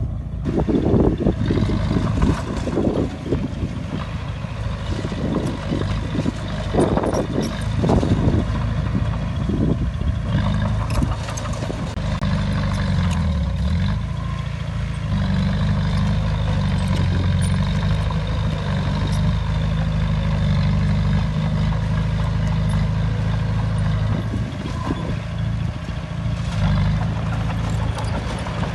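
Bulldozer's diesel engine running at work, with scattered metallic clanks in the first third. After that it settles into a steady note that briefly drops in pitch and climbs back about halfway through.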